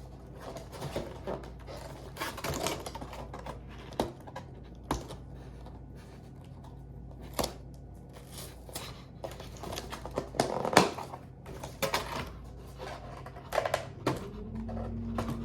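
Cardboard and plastic packaging being handled while a coffee machine box is unpacked: irregular clicks, taps and short rustles, the loudest knock about eleven seconds in, over a faint steady low hum.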